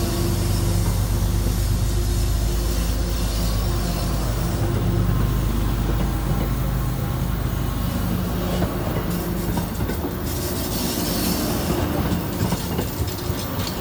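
MBTA commuter rail coaches rolling past close by, with steady rumbling wheel noise on the rails. A low engine hum from the train fades out about halfway through. Toward the end, clicks and knocks of the wheels over rail joints come through.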